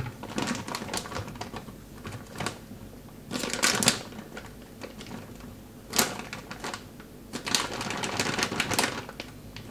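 Clear plastic bread bag crinkling and crackling in bursts as hands work it open to take out a pita.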